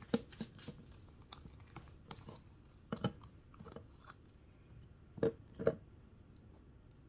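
Scattered small clicks and taps of things being handled, with a louder knock about three seconds in and two more close together a little after five seconds.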